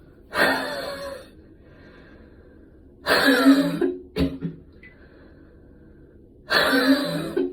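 A person coughing hard after a gym workout: three coughing bouts of about a second each, some three seconds apart, the middle one trailing off into a couple of short extra coughs.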